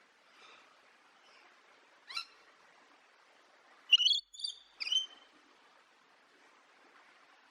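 Parrot calling: one short call about two seconds in, then three loud calls in quick succession around the middle, over a faint steady hiss.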